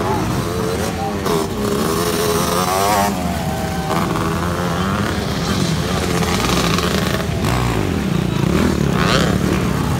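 Dirt bike engines revving and running on a muddy motocross track, their pitch rising and falling unevenly, over a continuous engine drone.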